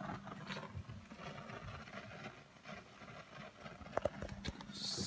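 Neumann C800G tube condenser microphone producing a fault noise: an irregular, wind-like crackling and rustling over a steady low hum, with a few sharp clicks about four seconds in. The noise appears with every preamp tried, which the owner fears points to the microphone itself.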